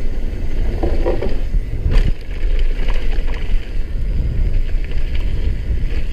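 Downhill mountain bike ridden fast down a trail: tyres rumbling over a wooden boardwalk and then gravel, with the bike's parts rattling. A sharp knock about two seconds in.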